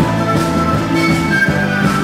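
Andean folk band playing an instrumental passage: a flute carries the melody in long held notes over strummed guitar, electric bass and a steady drum beat.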